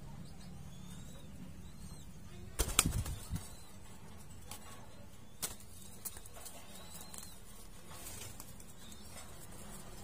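Ringneck dove flapping its wings in a wire cage: a quick flurry of wing beats about two and a half seconds in, followed by a few single light clicks.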